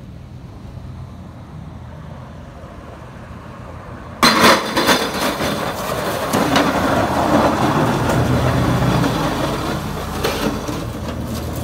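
An old sedan's engine rumbling low as it approaches. About four seconds in comes a sudden loud crack and crunch as the car hits a plastic blow-mold Santa figure. Then engine and tyre noise on packed snow as the car passes close by, slowly fading.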